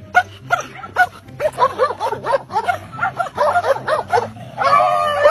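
Dog barking in a fast run of short, high yaps, several a second, with a longer held call near the end.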